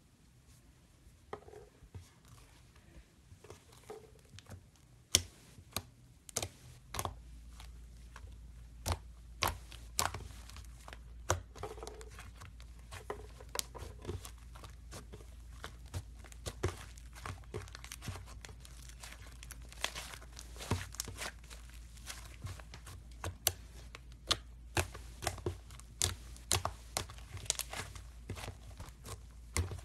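Foam slime (floam) squeezed and poked by hand, the foam beads giving irregular sharp crackles and pops, with a few louder snaps among them.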